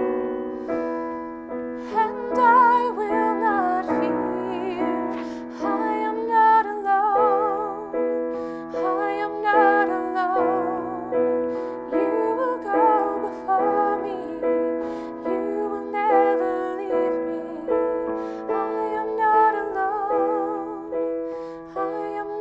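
A woman singing solo with held notes and vibrato, accompanied by a digital piano playing chords struck about once a second.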